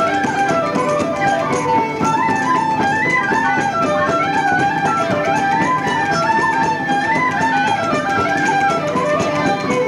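Irish traditional session music: fiddle playing a quick tune of rapidly stepping notes, with a plucked-string accompaniment underneath.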